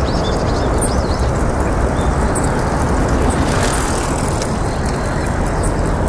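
Steady low rumble of distant road traffic, with a few faint, very high chirps over it.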